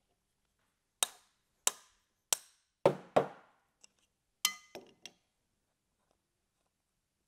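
Five sharp metal knocks less than a second apart, the last two heavier, from a hook spanner working the bearing nut on a centrifugal pump shaft. Then a metal clink with a brief ring and two lighter clinks as the nut and lock ring come off.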